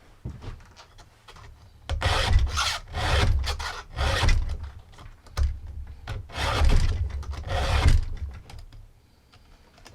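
Hand file strokes rasping across the cutters of a chainsaw chain during sharpening: about seven separate strokes, roughly one a second, starting about two seconds in and stopping near the end.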